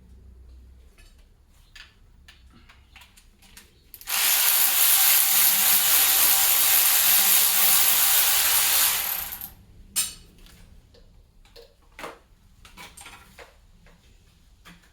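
Compressed-air tool running in one steady hiss for about five seconds, starting about four seconds in, during an engine teardown. Scattered clicks and knocks of tools and bolts come before and after it.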